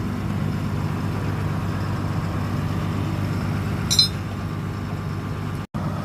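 Dynapac asphalt paver's diesel engine running steadily, with a single sharp metallic clink about four seconds in. The sound cuts out for an instant near the end.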